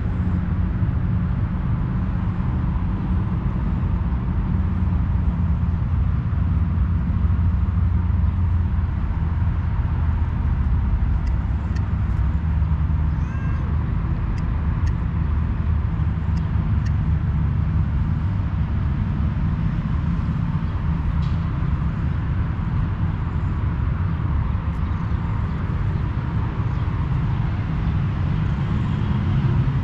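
Steady low rumble of distant traffic, with a faint cat meow about halfway through.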